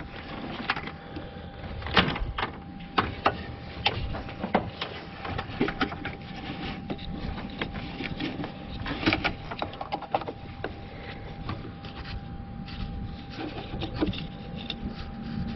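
Hands working at an unplugged wiring connector and a test light probe being put to its terminals: scattered, irregular clicks, taps and scrapes over a faint steady hum.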